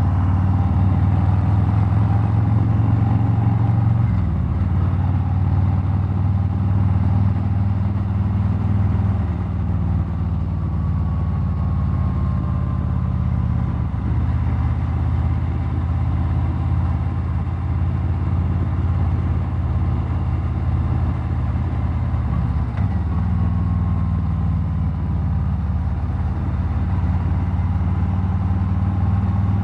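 2019 Harley-Davidson Street Glide Special's Milwaukee-Eight 114 V-twin running under way at road speed. Its steady low note drops a little about four seconds in and again about nine seconds in, then comes back up about twenty-three seconds in.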